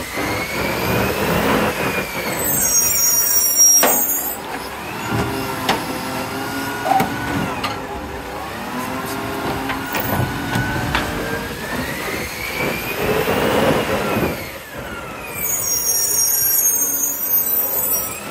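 Isuzu 240-350 side-loader garbage truck's diesel engine rising and falling in pitch as it moves between bins, with a long hiss of released brake air twice: about three seconds in and again about fifteen seconds in.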